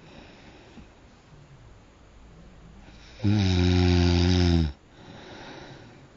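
A sleeper snoring. Quiet breathing gives way, a little past the middle, to one loud snore with a steady low pitch lasting about a second and a half, followed by a softer breath.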